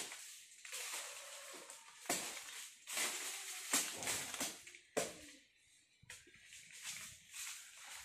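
Billhook hacking at mango-tree branches: several sharp chops at uneven intervals, with leaves rustling between them.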